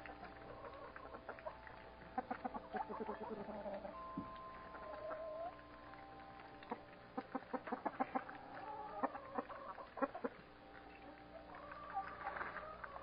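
A flock of backyard hens clucking, in quick runs of short clucks, with a longer rising call near the end.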